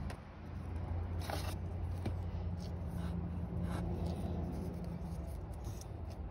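Short scratchy rustles as a small torn-off piece of an old glove is handled between the fingers, several strokes in the first few seconds, over a steady low hum.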